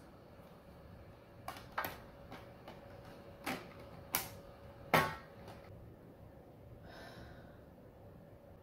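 Clear acrylic panels of a Zilla Micro Habitat enclosure clicking and tapping against each other as they are handled and fitted together: about five short sharp clicks spread over the first five seconds, the last one loudest.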